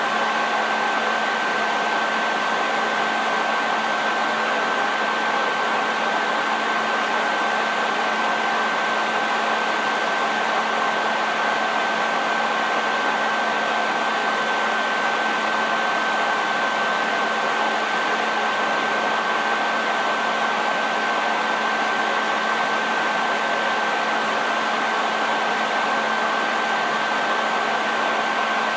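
Hair dryer running steadily: an even rush of blown air with a constant high motor whine and a lower hum.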